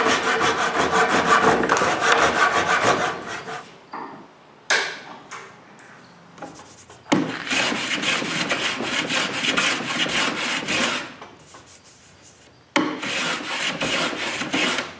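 A hand tool scraping and rasping on hardwood in three bouts of quick, closely spaced strokes, trimming a glued-in maple plug flush in a door's hinge hole.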